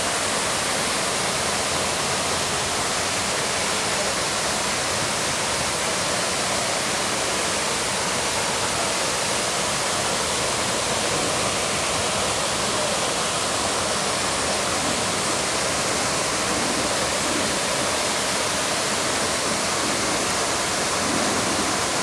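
Waterfall pouring into a pond: a steady, unbroken rush of falling water.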